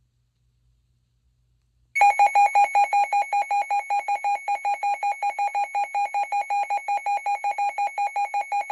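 A weather radio's built-in alert alarm going off: a loud, high beep repeated rapidly, about five times a second, starting suddenly about two seconds in. It signals an incoming Blizzard Warning.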